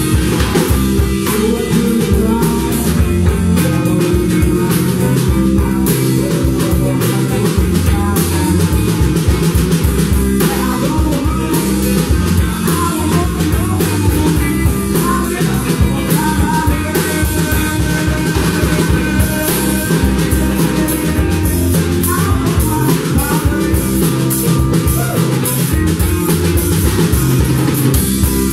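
Live blues-rock band playing loudly, with electric guitars over a steady drum-kit beat.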